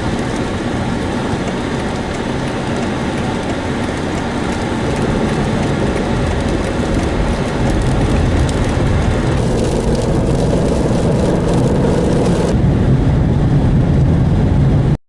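A car driving on a snowy road: steady road rumble and tyre hiss, growing a little louder, cutting off suddenly at the end.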